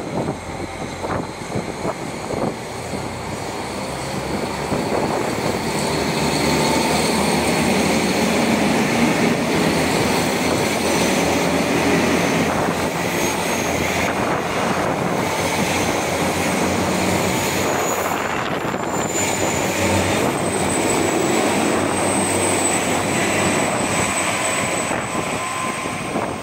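Electric commuter train running past on the near track: a steady rumble of wheels on rails with thin high whines above it. It builds over the first few seconds and then holds.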